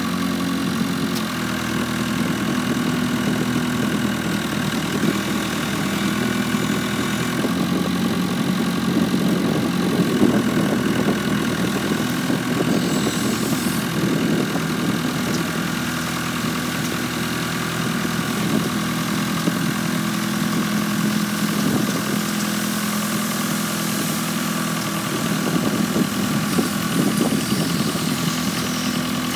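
1996 Rosco RB48 sweeper's engine running steadily as the machine drives while its rotary broom sweeps the dirt.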